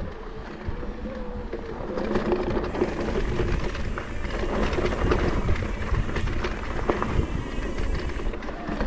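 Mountain bike being ridden along a dirt trail: continuous tyre and riding noise with many small knocks and rattles.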